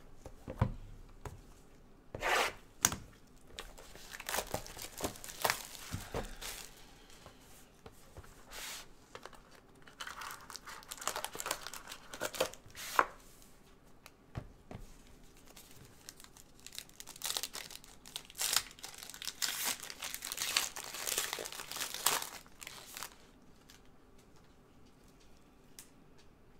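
Packaging of a football trading-card box being torn open and crumpled by hand, with tearing and crinkling in three bouts of a few seconds each and sharp snaps among them.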